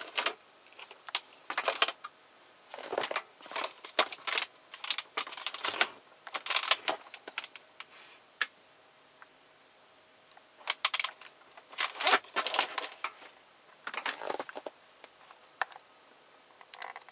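Plastic clicks, taps and scrapes from a car's removed instrument cluster housing being handled and turned over by hand. They come in irregular bursts, with a quieter stretch about halfway through.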